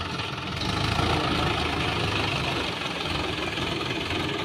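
Swaraj 843 XM tractor's three-cylinder diesel engine running steadily while the tractor drives through shallow water with a rotavator mounted behind; it gets a little louder about a second in.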